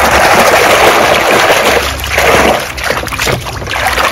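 Water splashing and churning in a basin as a hand swishes and scrubs muddy plastic toys. It is loudest over the first second or so, with another surge about two seconds in.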